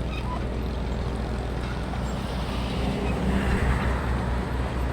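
An engine running steadily, with a swell of louder, higher noise about three seconds in.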